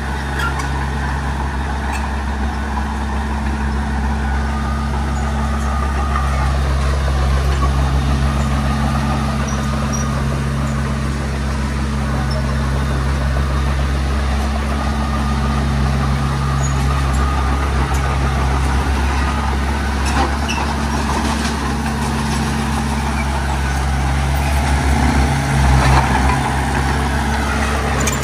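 Diesel engine of heavy earthmoving machinery running steadily, with a few sharp knocks and clanks. It gets briefly louder near the end.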